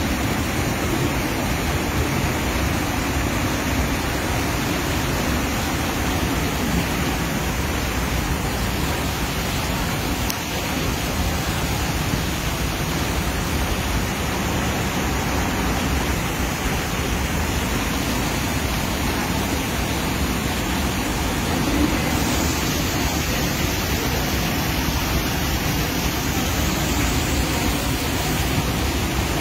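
Muddy floodwater rushing and cascading, a steady rushing noise that turns hissier about two-thirds of the way through.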